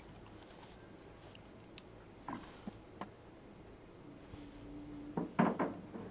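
Things being handled in a kitchen cupboard: a few faint ticks, then a quick cluster of sharp knocks and clinks near the end as items inside are moved.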